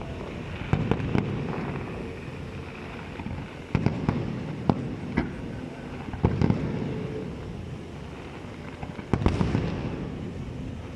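Aerial fireworks bursting: sharp bangs coming singly and in quick clusters, each trailing off into a low rumble.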